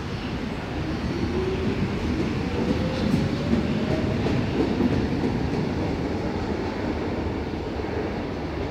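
Berlin U-Bahn train accelerating along the track. Its traction motors give a whine that rises in pitch over the first few seconds, over a rumble of wheels on rails that is loudest in the middle and eases off near the end.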